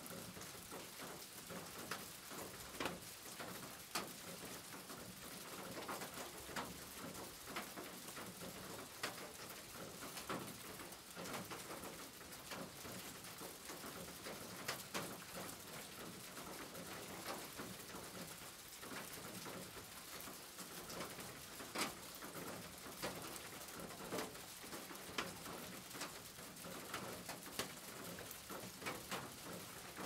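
Steady rain drumming on a corrugated tin roof, an even hiss scattered with sharp ticks of single drops hitting the metal. Birds call faintly in the background.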